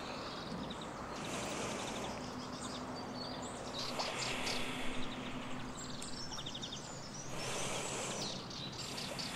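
Outdoor ambience: birds chirping and trilling on and off over a steady faint background hiss.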